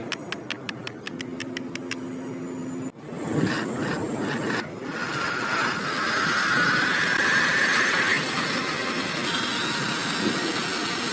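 Small motor running: rapid regular ticking for the first couple of seconds, then after a sudden break a whine that rises in pitch for a few seconds over a mechanical rattle.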